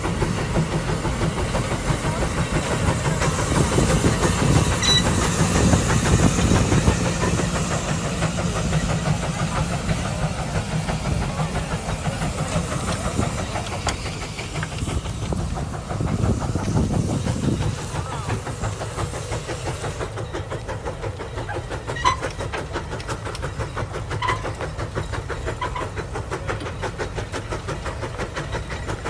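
Case 150 steam traction engine working under the load of a 36-bottom plow, its exhaust beating in a quick, even rhythm with a hiss of steam; it is hardly breathing heavy. The sound turns duller and a little quieter about two-thirds of the way through.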